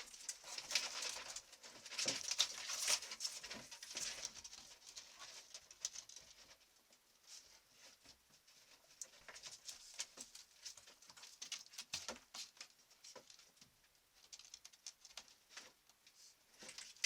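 A raccoon moving about in a shed: claws scratching and pattering footsteps with rustling, busiest in the first few seconds and then more scattered, sharp little clicks.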